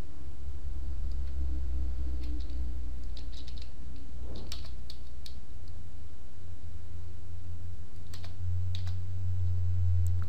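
Computer keyboard keystrokes, a few short clusters of clicks: one a couple of seconds in, another near the end. They sound over a steady low hum.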